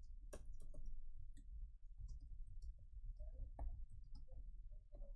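Faint, irregular clicks of a computer keyboard and mouse being used at a desk, over a low steady hum.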